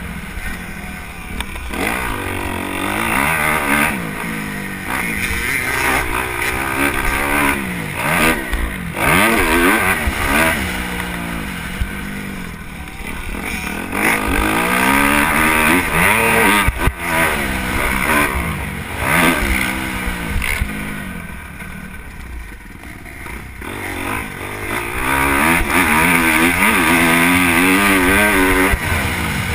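Motocross dirt bike engine revving hard and easing off again and again, its pitch climbing and dropping every second or two as it is ridden round the track. It runs quieter for a few seconds about twenty seconds in.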